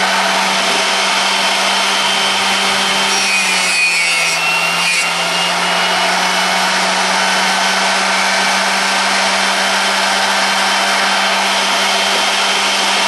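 A drill bit sharpener's grinding wheel running steadily with a constant motor hum, a large twist drill bit held in its jig and ground against the wheel with a rasping hiss. The grinding tone wavers briefly about four seconds in.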